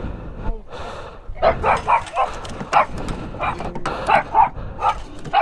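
A dog barking repeatedly, in short barks about two or three a second from about one and a half seconds in.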